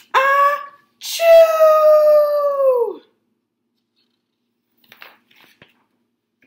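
A woman's voice acting out a big theatrical sneeze: a short rising "ah", then a long, high, drawn-out "tchooo" that falls away at the end.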